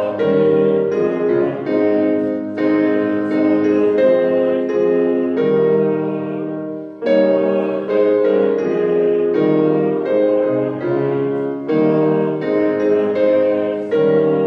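Piano playing a slow hymn tune in full chords, with a phrase ending about halfway through before the next phrase starts.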